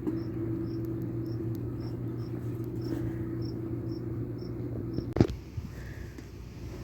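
Cricket chirping in short, evenly spaced high chirps about three a second, over a steady low mechanical hum. A sharp knock comes about five seconds in, and the chirping and hum stop with it.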